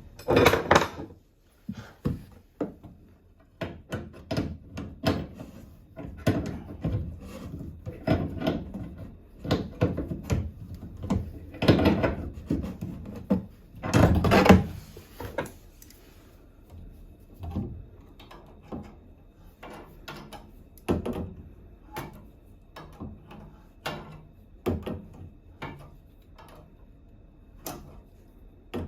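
Irregular knocks, clicks and scrapes of hand work on a bathroom faucet installation: metal fittings and tools being handled and set down, with louder clatters about half a second in and again around twelve and fifteen seconds.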